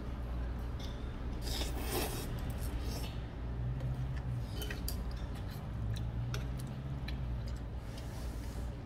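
Jajangmyeon noodles being slurped and stirred with metal chopsticks in an earthenware bowl, with irregular rasping slurps and light clicks of the chopsticks on the bowl, over a steady low hum.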